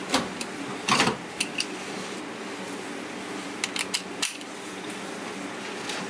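A new three-point retractable seat belt being pulled out and buckled: short clicks and rattles of the buckle and retractor, a cluster about a second in and more around three and a half to four seconds, over a steady low hum.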